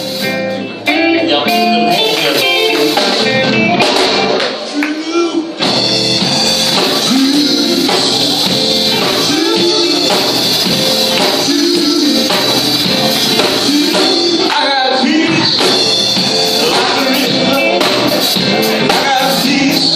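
Live singing with band accompaniment and a tambourine; the band comes in fuller just under a second in.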